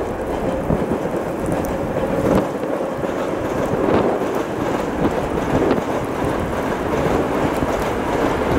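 ChME3 shunting diesel locomotive drawing close with a freight train: its six-cylinder diesel engine gives a steady low rumble over the noise of wheels on the rails, with a few sharp clacks from the wheels.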